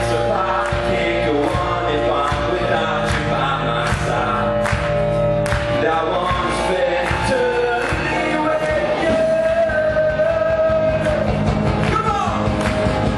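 Live contemporary Christian worship band playing a rock-style song: singers over electric guitar, keyboard and drums. A singer holds one long note about two-thirds of the way through, then slides down.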